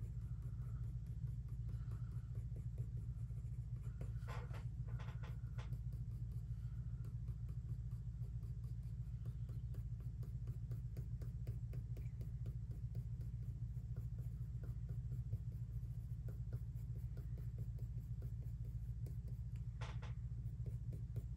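Coloured pencil scratching across textured watercolour paper in many quick short strokes, a few of them louder, over a steady low hum.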